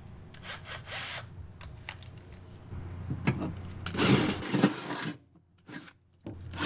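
Angle drill with a large bit boring out a hole in the car in short bursts, the loudest burst about four seconds in, then stopping.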